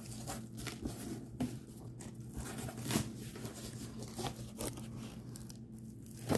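Cardboard shipping box being opened by hand: flaps pulled apart and handled, with tearing, scraping and crinkling of plastic wrap, and scattered light knocks throughout.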